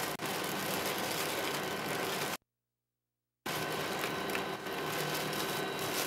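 Steady hiss and hum of the shuttle crew cabin's ventilation fans and equipment cooling, with a few faint constant tones in it. The sound cuts out completely for about a second in the middle, then returns unchanged.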